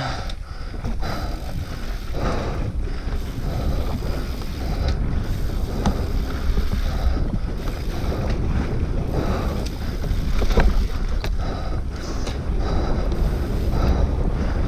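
Onboard sound of a mountain bike descending fast on a dirt and stone trail: wind buffeting the microphone over the rumble of the tyres, with frequent short rattles and knocks from the bike over bumps.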